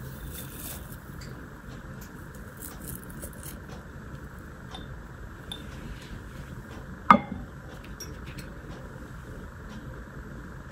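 Glass jar handled on a table: a few faint small clicks, then one sharp clink of glass a little past halfway, ringing briefly, over a steady low hiss.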